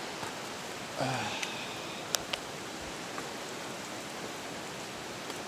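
Steady hiss of running water. A brief voice sound comes about a second in, and two sharp clicks a little after two seconds.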